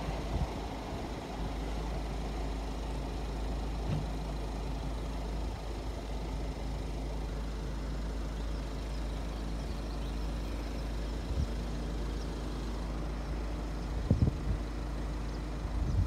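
Heavy diesel engine running steadily: a low, even rumble with a faint hum over it, and a few short knocks near the end.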